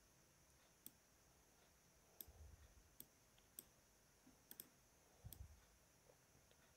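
Faint scattered clicks, about eight of them, from a pointing device as a block of on-screen writing is selected and dragged, over near silence. Two soft low thumps come about two and five seconds in.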